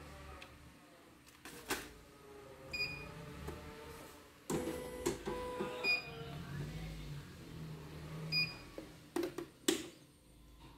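Control-panel beeps from a CNY computerized embroidery machine as its touch screen is operated: three short single beeps a few seconds apart. Some handling knocks and clicks fall between them.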